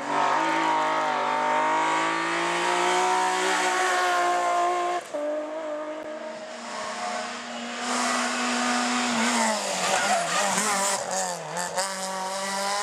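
Rally car engines at high revs on a twisting road, heard in separate short clips. First a BMW E30 3 Series passes close by, its engine note holding fairly steady, then breaking off abruptly about five seconds in. Then another car is heard further off with a steadier lower note, which wavers up and down in pitch with gear changes from about nine seconds in.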